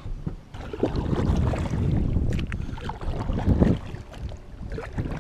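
Kayak being launched and paddled: water sloshing and splashing around the hull, with two louder swells and a few knocks, and wind buffeting the microphone.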